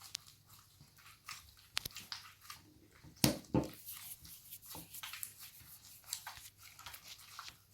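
Homemade slime being kneaded and squished by hand: faint, irregular wet clicks and squelches, with a louder pair about three and a half seconds in.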